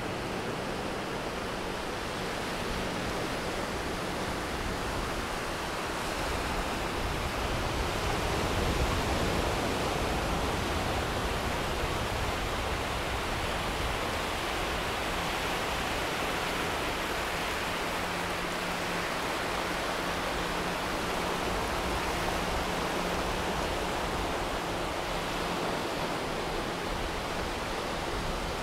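Ocean surf washing onto the beach: a steady rushing that swells a little and eases again.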